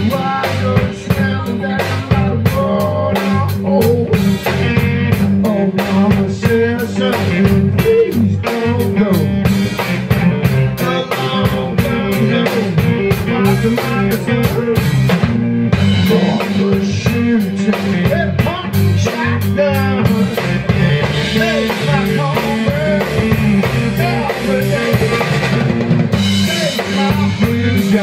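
Live rock band playing an instrumental passage: a drum kit keeping a steady beat under electric guitars and bass, with no singing.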